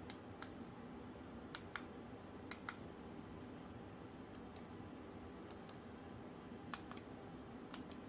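Ant Esports GM320 gaming mouse buttons clicking: the side sniper button, the left button and the LED button are pressed and released. The clicks come in quick pairs, about one pair a second.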